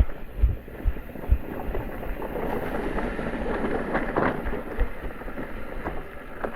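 Wind rushing over the microphone and tyres rolling over a rough, stony trail on an electric mountain bike, with several short low thumps as the bike hits bumps.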